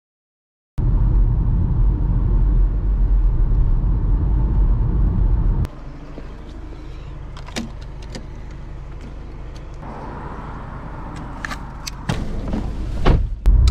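Car running, heard as a loud steady low rumble, for about five seconds. It cuts off suddenly to a quieter steady hum with scattered sharp clicks and a few louder knocks near the end.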